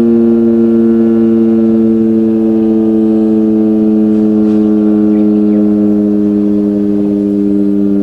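Outdoor disaster-warning siren sounding one long continuous tone that slowly falls in pitch, as part of a test broadcast.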